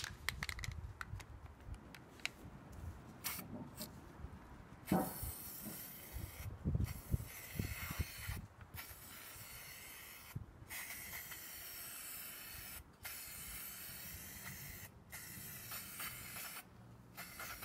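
Aerosol spray can of primer hissing in repeated passes, each a couple of seconds long, with short breaks between them. A few knocks and clicks come before the spraying starts about five seconds in.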